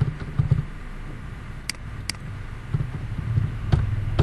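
Two sharp computer mouse clicks, about half a second apart, over low thumps and rumble on the microphone.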